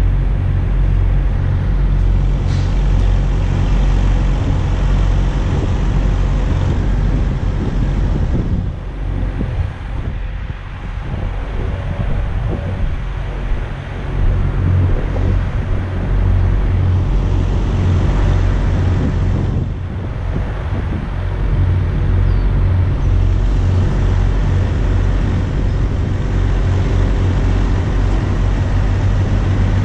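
Steady low hum of idling vehicle engines mixed with wind rumbling on the microphone, with brief lulls now and then.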